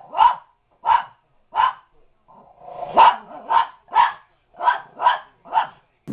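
Small dog barking in a run of short, sharp barks, about nine of them, with a brief pause around two seconds in.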